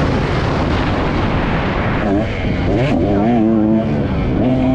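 Dirt bike engine being ridden, its note at first mixed into a rushing wind noise, then rising and falling repeatedly with the throttle from about two seconds in.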